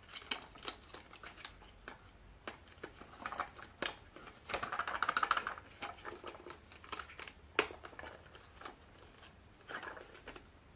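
Plastic wrapping on a small cardboard bronzer box being picked at and peeled by fingers: scattered clicks and crinkles, with a longer crinkling stretch about halfway through.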